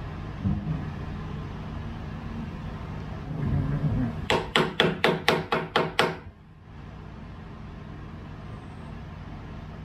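Eight quick hammer blows, about four a second, lasting under two seconds, over a steady low background hum.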